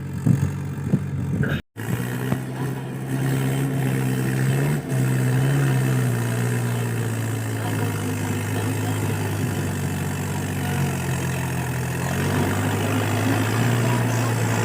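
Tractor engine running steadily with a low, even hum that shifts slightly in pitch now and then. The sound cuts out for an instant near the start.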